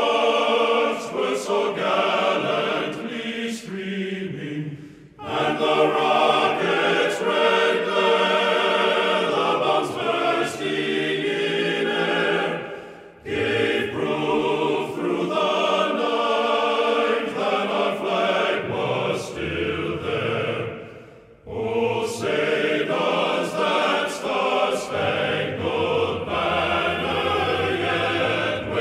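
Background music with a choir singing in long sustained phrases, breaking off briefly three times.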